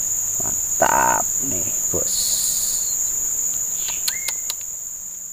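Insects in riverside forest droning steadily in two high, even tones, fading out toward the end.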